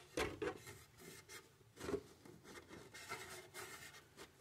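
Cloth rubbing and wiping a clear polycarbonate RC car body in a series of faint, short scuffing strokes. It is wiping away DOT 3 brake fluid used to lift paint overspray.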